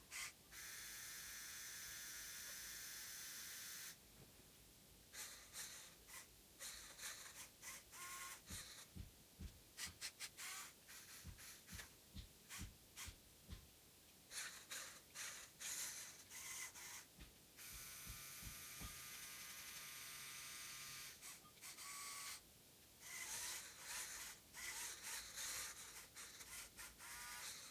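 Small electric motors of a LEGO Technic forklift whining as they drive the model and raise and lower its forks, in steady runs a few seconds long, with stretches of short clicks and rattles from the gears between them.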